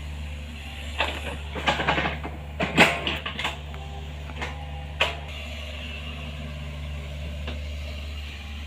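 Excavator's diesel engine running steadily, with a run of sharp clanks and knocks from about a second in until about three and a half seconds, and one more a little after five seconds.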